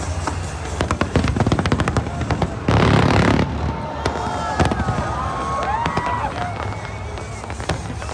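Aerial fireworks display going off: a rapid string of sharp bangs and crackles, with a loud dense burst of crackling about three seconds in. Rising and falling high tones glide through the middle.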